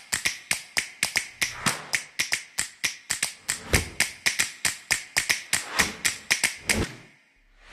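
A rapid run of sharp clicks, about five a second, each dying away quickly, that stops about seven seconds in.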